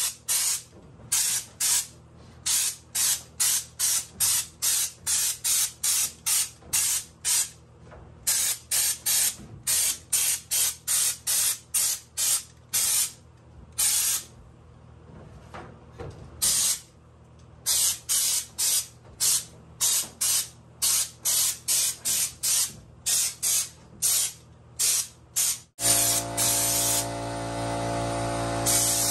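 Air-powered schutz gun spraying rubberised bedliner in rapid short trigger bursts, about two a second, with a few brief pauses. Near the end a continuous hiss with a steady machine hum takes over.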